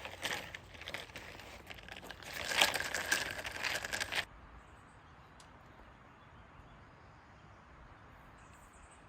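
Crunching and rustling with many short sharp strokes for about four seconds, loudest in the middle, then it cuts off suddenly to a faint steady background hiss.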